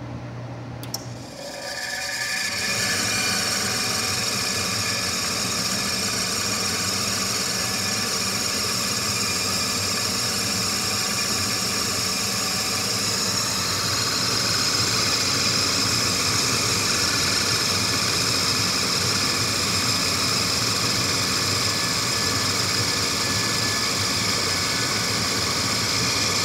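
Furnace inducer motor clicking on about a second in, spinning up and running steadily with a high-pitched squeak. The squeak comes from rust that fell from the ductwork into its fan, which may need lubricating or swabbing out.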